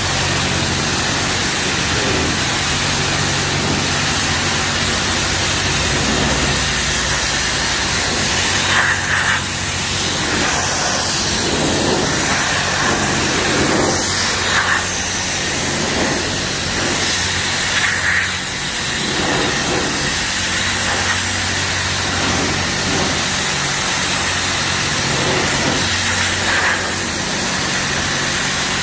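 High-pressure car wash wand, rated at about 3,000 psi, spraying water into a car's engine compartment: a loud, steady hiss whose tone shifts every few seconds as the jet moves across different surfaces. A steady low hum runs underneath.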